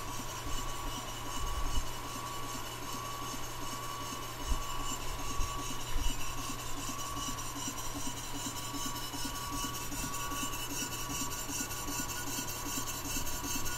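Early-1900s Sipp Corliss model steam engine (1 1/8" bore, 2" stroke) running fast, its valve gear and exhaust beating out a rapid, even rhythm with a steady hum beneath it.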